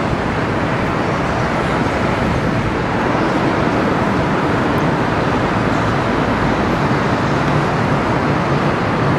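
Steady wash of city traffic noise rising from the streets below a high-rise balcony, with no single vehicle standing out.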